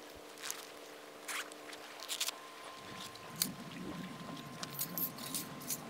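Scattered light clicks and rustles of a backpack being set down and small camping gear being handled by hand, with a denser rustle partway through, over a faint steady hum.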